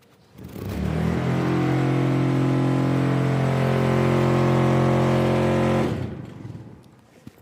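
A loud, deep, steady drone, like an engine revved up and held at high revs: it swells in about half a second in, holds one pitch for about five seconds, then dies away.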